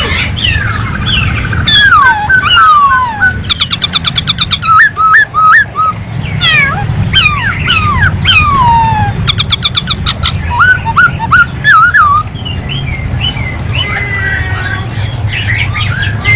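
Poksay hongkong (Chinese hwamei) singing a loud, varied song of rich whistled slurs and quick repeated trills, softer from about twelve seconds in, over a steady low hum.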